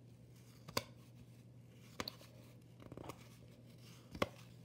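1990 Fleer baseball cards being flipped through by hand: faint rustling of thin card stock, with three sharp clicks as cards snap against the stack, about a second, two seconds and four seconds in, over a faint steady hum.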